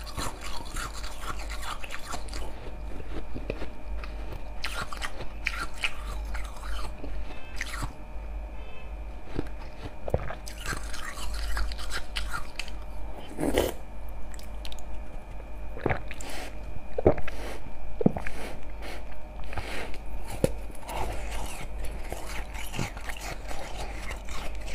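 Close-up biting and chewing of a block of slushy ice frozen in a water bottle: irregular sharp crunches and crackles as the ice breaks between the teeth.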